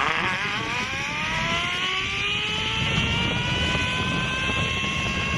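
Zip-line trolley pulleys running along the steel cable, a whine that rises in pitch as the rider picks up speed and then holds steady, over a low rumble.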